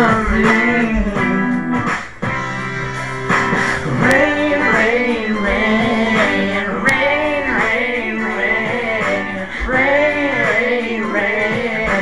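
Music: a guitar-backed pop song's instrumental passage, with a melodic lead line that rises and falls in pitch over steady chords.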